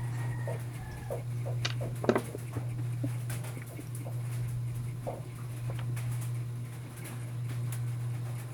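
Small clicks and handling noises from a microphone cable and its plug being opened up and examined, with one sharper click about two seconds in, over a steady low hum.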